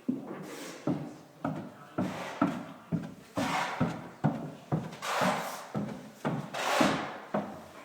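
Footsteps going down wooden stairs, about two steps a second, each a short thud with a scuff.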